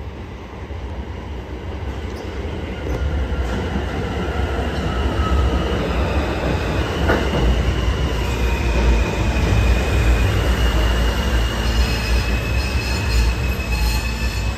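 New York City subway train entering the station on the near track: a low rumble that grows louder over the first five seconds, then holds as the cars pass, with high steel-wheel squeal and thin whining tones on top.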